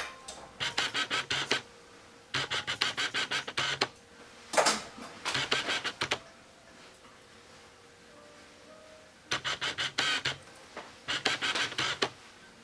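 Grooming shears snipping through a dog's coat in quick runs of several cuts each, about seven snips a second, with short pauses between runs: trimming the hair around the head and eyes.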